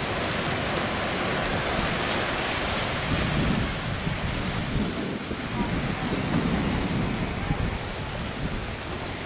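Jet engine noise of a Boeing 787 Dreamliner on final approach to land: a steady rushing roar with low, rumbling swells.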